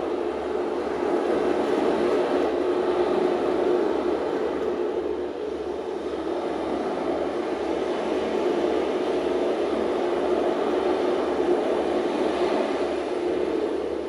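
Recorded sea-storm soundscape: a steady rushing noise of wind and waves that eases slightly about five seconds in and swells again.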